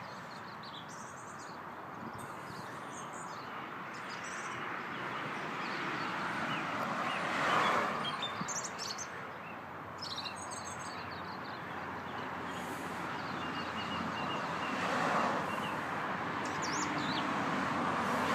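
Outdoor background noise: a steady wash of traffic that swells and fades as vehicles pass, with scattered short high chirps from birds.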